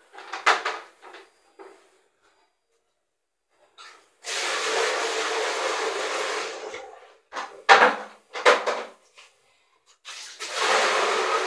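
Water running out of sight in two stretches of about three seconds each, with short knocks and clatter between them.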